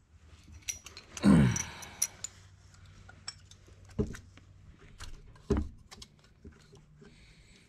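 Metal parts of a Dana 30 differential clinking and knocking as the ring-gear carrier, its bearings and shims are handled and worked into the axle housing: scattered light metallic clicks, two dull knocks, and one louder sound that drops in pitch about a second in.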